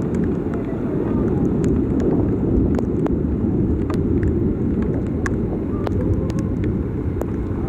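Steady low rumble of vehicle noise in heavy rain, with scattered sharp ticks throughout.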